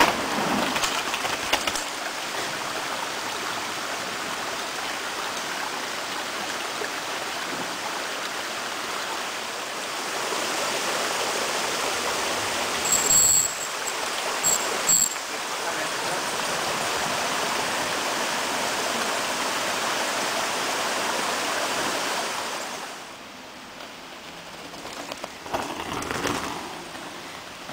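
Steady rush of a forest creek, which fades about three quarters of the way through. Mountain bikes pass close by: tyres clatter over a wooden bridge at the start, and a rider goes past near the end, with a few brief high squeaks about halfway.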